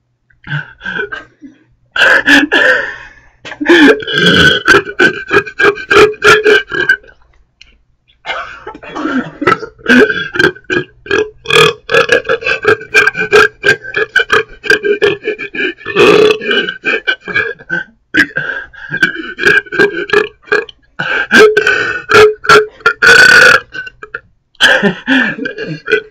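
A person burping over and over in quick succession, dozens of short burps one after another with brief pauses between runs: a deliberate rapid-fire series of burps.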